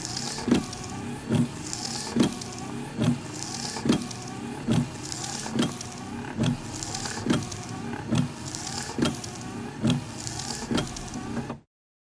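A HOWO dust suppression truck's fog cannon running, its fan and water spray over the truck's engine. A regular thump comes a little under once a second, and a hiss swells and fades. The sound cuts off suddenly near the end.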